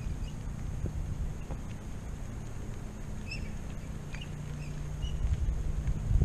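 Low rumble of wind buffeting the microphone during a bicycle ride, with short high bird chirps scattered through it.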